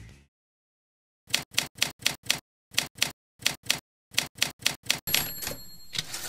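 Mechanical typewriter keys struck one at a time in short runs, about fifteen strokes in all, then a bell ding about five seconds in followed by a longer rough noise.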